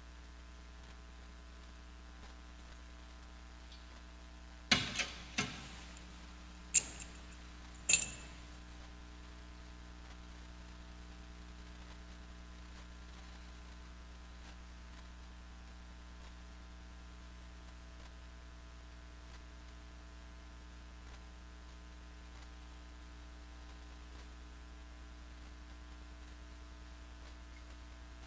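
Four sharp knocks and metallic clinks in quick succession, about five to eight seconds in, the last two ringing briefly: the tabernacle and the altar vessels being handled. Under them a steady electrical hum.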